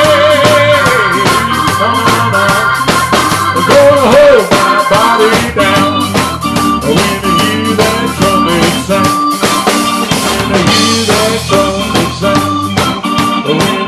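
Live band music: a Gretsch drum kit keeping a steady beat under an organ-toned electric keyboard.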